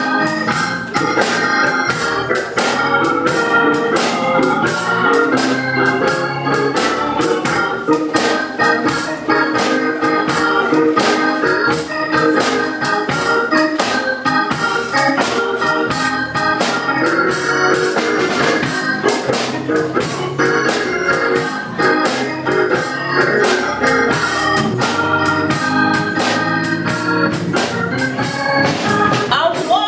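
Hammond-type church organ playing gospel music with a steady beat of sharp strokes.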